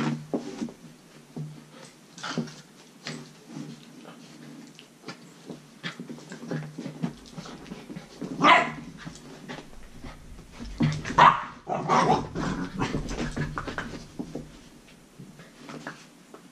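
Belgian Malinois puppies at play, giving short barks and yaps with scuffling between them; the loudest barks come about eight seconds in and again around eleven to thirteen seconds.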